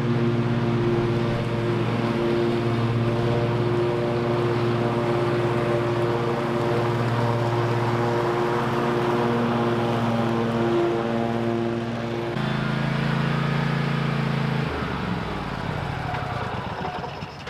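Toro TimeCutter MyRide 54-inch zero-turn mower running at mowing speed, its engine and cutting deck working through grass. The engine note holds steady with slight wavers, then falls in pitch and gets quieter near the end as it throttles down.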